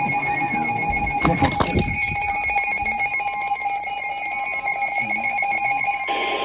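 NOAA Weather Radio emergency alert tone: a steady electronic alarm tone that starts abruptly, with a short burst of noise about a second and a half in. The tone signals a warning-level alert.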